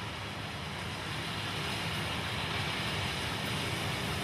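Steady low rumble under an even hiss from a running vehicle, growing slightly louder, with no distinct knocks or calls.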